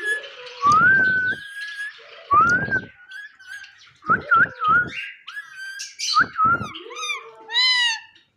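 Pet talking parrot whistling short rising notes, broken about four times by harsh, rasping screeches, with a wavering call near the end.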